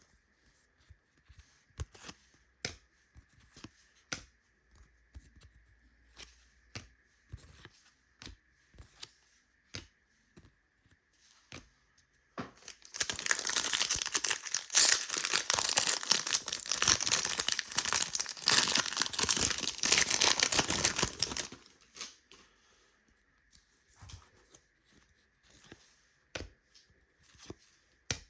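Trading cards handled with soft, scattered clicks, then about twelve seconds in a card pack's wrapper is torn open and crinkled for about nine seconds, the loudest sound, before the clicks of card handling return.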